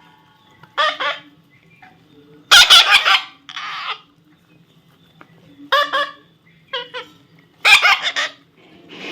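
Baby parrot squawking in a string of short calls, the loudest about two and a half seconds in.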